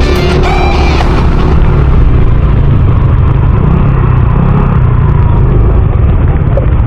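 Yamaha Mio i 125 scooter on the move: steady, loud rumble of wind and road noise on the microphone, with the engine running underneath.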